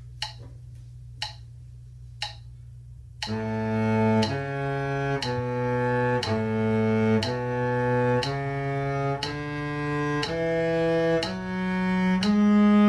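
Three sharp clicks about a second apart, then a cello plays the first octave of the A major scale in bowed notes about one per second, climbing overall from low A to the A an octave above.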